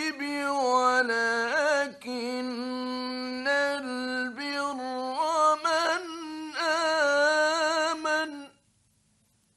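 Male Quran reciter chanting in the melodic mujawwad style, with long held, ornamented phrases, on an old radio recording. The voice stops abruptly about eight and a half seconds in, leaving near silence.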